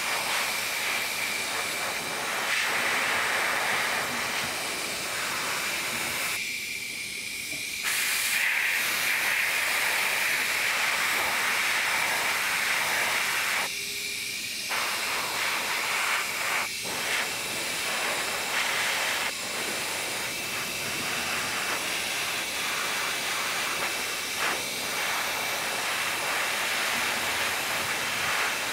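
Airbrush spraying a light mist of paint: a steady hiss of air. The hiss stops briefly twice, for about a second and a half some six seconds in and for about a second near the middle.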